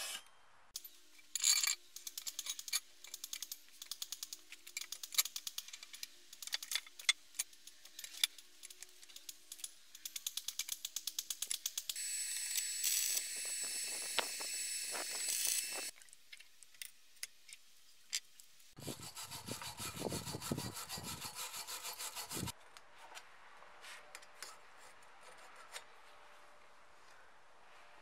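Bench metalwork on steel tube. First comes a long run of light sharp metal taps and scrubbing as weld slag is chipped and brushed off. Then about four seconds of steady, crackling welding hiss. After a few more clicks there is a louder, fuller stretch of shop noise.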